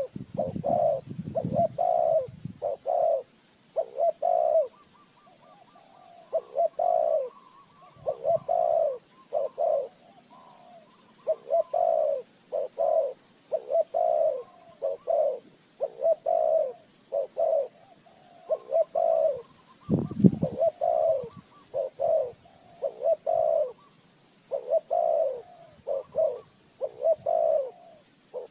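Spotted dove calling as a decoy bird, repeating its cooing phrases over and over with short gaps between them. A brief low rumble comes near the start and again about two-thirds of the way through.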